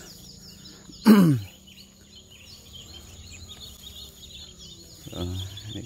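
Outdoor ambience of insects chirping in rapid, high repeated notes over a steady high whine. About a second in, a short, loud voiced sound falls in pitch, like a throat clearing.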